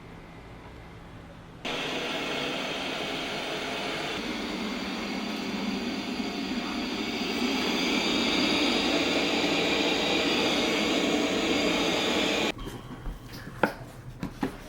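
A household appliance's electric motor switches on abruptly, runs steadily and grows louder in two steps, then cuts off suddenly near the end, followed by a few light clicks of handling.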